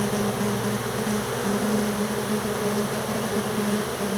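A large honey bee swarm buzzing, a dense, steady hum of thousands of flying bees.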